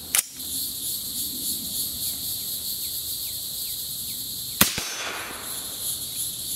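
Two sharp clicks at the start, then about four and a half seconds in a single suppressed gunshot from a Lone Star Armory TX-15 AR-15 in 6.5 Grendel, with a short ringing tail. The bolt locks open on the emptied magazine, a sign that the rifle cycled fully with the lightest H buffer and white spring. Insects drone steadily throughout.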